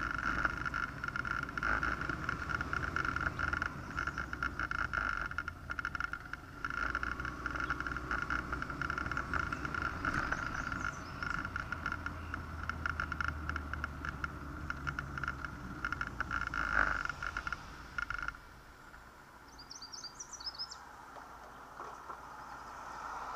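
Motorcycle riding noise picked up by a bike-mounted camera: a steady engine-and-wind drone with a rapid flutter and low rumble. About 18 seconds in it drops off abruptly as the bike comes to a stop. It is quieter after that, with a few faint chirps and an approaching car near the end.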